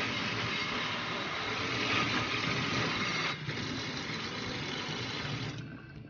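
Tap water running onto pumpkin seeds in a stainless steel colander pot in a sink: a steady splashing hiss that stops near the end.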